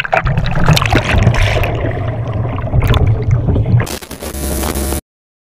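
Kayak paddle splashing through choppy lake water, with a steady low rumble underneath. About four seconds in this gives way to a short, steady noise that cuts off suddenly about a second later.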